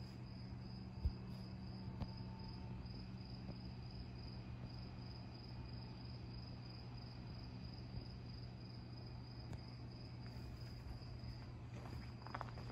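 Crickets chirping in a steady, fast-pulsing trill, over a low steady hum, with one short low thump about a second in.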